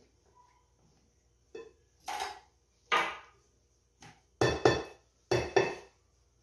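A blender jug and spatula knocking against a glass mixing bowl as pumpkin batter is scraped out: a run of sharp clattering knocks, ending in two quick double knocks, the loudest and ringing.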